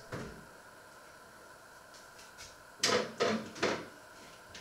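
Sharp knocks in a kitchen: a soft thump at the start, then three quick clacks in a row a little before the end, like a cupboard door or kitchenware being handled.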